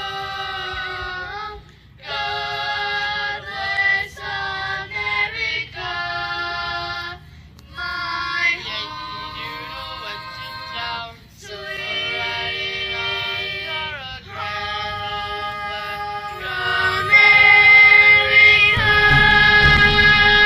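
A group of children singing together through microphones and a PA system, in phrases of a few seconds with short pauses between them. The loudest part is a long held note near the end.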